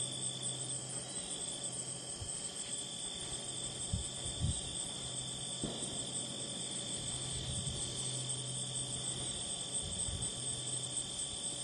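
Continuous high-pitched insect chorus, with a faint low hum beneath and a couple of soft low thumps about four seconds in.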